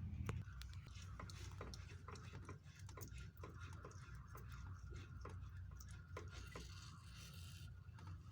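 Water dripping slowly as the boiler system finishes draining down: irregular drips, a few a second, over a low steady hum.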